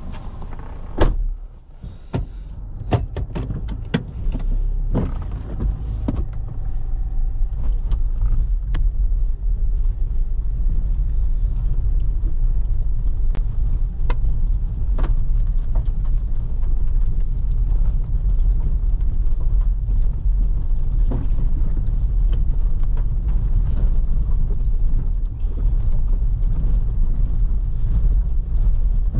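A car driving, heard as a steady low rumble that builds up a few seconds in. A loud knock comes about a second in, a cluster of sharp clicks and knocks follows over the next few seconds, and scattered ticks continue after that.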